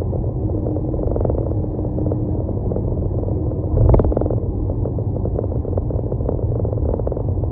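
Car driving along: a steady low rumble of road and engine noise, with a brief louder knock about four seconds in.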